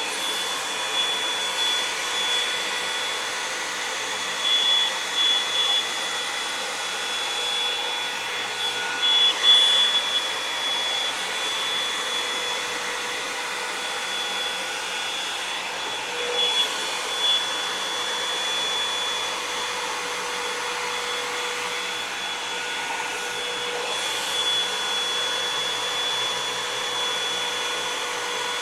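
Revlon One-Step hair dryer and volumizer brush running steadily, a blowing motor noise with a high whine, drying wet hair. The sound swells briefly a few times as the brush moves.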